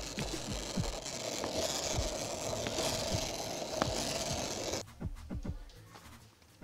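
Skateboard wheels rolling on asphalt, a steady gritty scraping rumble with a few low knocks near the start. It cuts off suddenly about five seconds in, leaving a quieter stretch with a few faint clicks.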